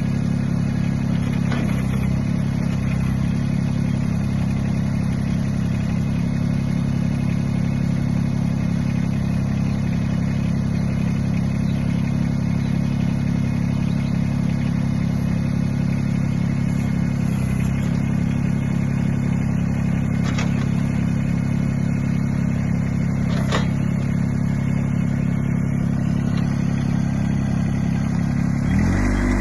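Yanmar SA24 compact tractor's diesel engine running at a steady idle, with a few light clicks; the engine speed picks up just before the end.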